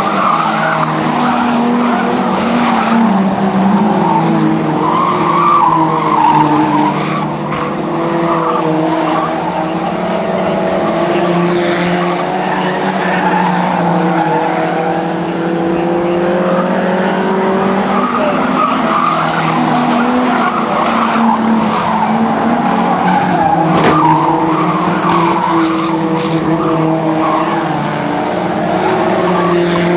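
A pack of old saloon stock cars racing around a loose-surfaced oval, several engines revving and easing off together as they lap. The tyres slide on the dusty surface.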